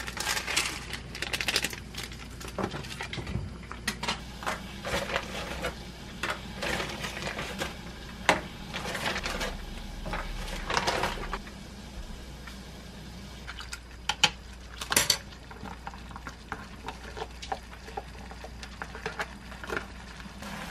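Kitchen handling sounds: the peeled lid and plastic sachets of an instant noodle cup rustling, with irregular clicks and knocks of a pot and utensils on a gas stove. The loudest are a few sharp knocks around the middle.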